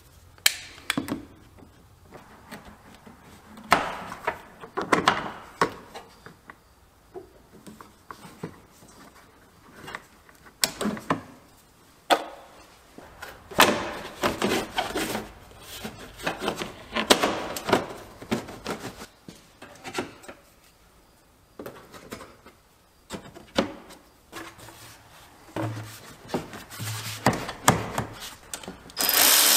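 Hands fitting plastic radiator and air-intake parts under a truck's hood: scattered knocks, clicks and rubbing of plastic parts being pushed and seated. A power tool starts running at the very end.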